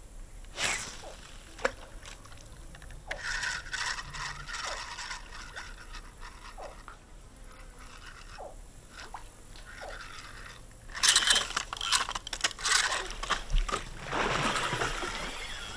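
Spinning reel being cranked and line worked across the water. About eleven seconds in come loud splashes and a churning of water as a hooked alligator thrashes at the surface.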